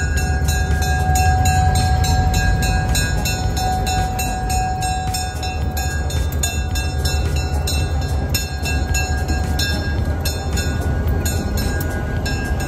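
Diesel road-switcher locomotive 216 passing slowly, its engine giving a steady low rumble. A steady high tone and a quick, even ticking sound over it.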